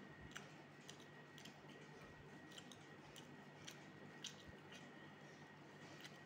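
Faint, irregular small clicks and squishes of rice being eaten by hand from a steel plate, as the fingers mix and scoop the rice.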